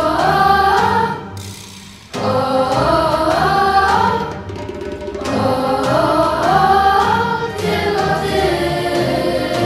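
Children's choir, mostly girls' voices, singing a Polish pop song over instrumental accompaniment. The singing drops away briefly about a second in and comes back with the next phrase about two seconds in.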